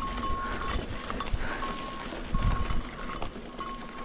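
A steady high electronic beep repeating a little more than once a second, each beep about half a second long, over the rolling rumble of a mountain bike with a bump about two and a half seconds in.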